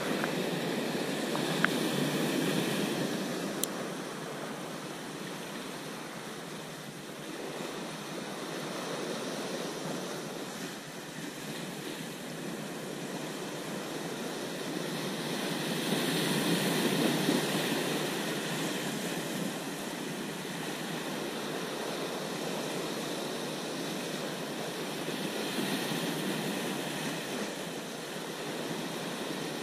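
Sea surf breaking and washing over rocks below, a steady rushing that swells loudest about two seconds in and again just past halfway.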